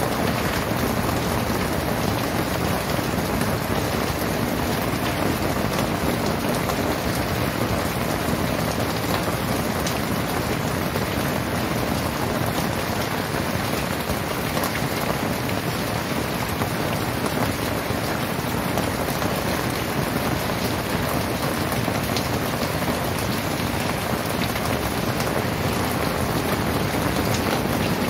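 Very heavy rain pouring down steadily, a dense even hiss of falling water, with no thunder.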